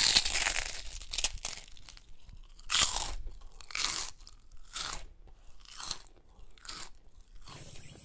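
Crunchy chewing of crispy deep-fried street food close to the mouth: a string of irregular crunches, loudest at the start and thinning out toward the end.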